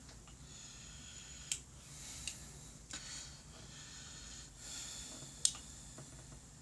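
Small magnetic pieces of a toy pen clicking together as they are handled and stacked: three sharp clicks, about one and a half, two and a quarter and five and a half seconds in, over soft breathing.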